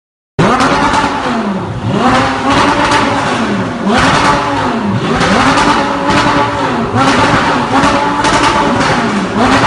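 Audi R8's 5.2-litre V10 revved again and again through an Armytrix titanium valved exhaust, each blip rising and falling in pitch about once a second; the sound cuts in abruptly just after the start.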